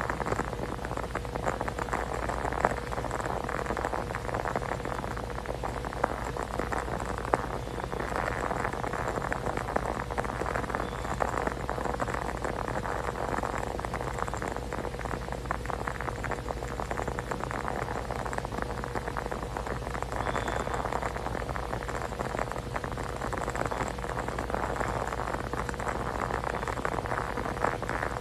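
Steady crackling hiss with many fine ticks, with a faint steady hum underneath.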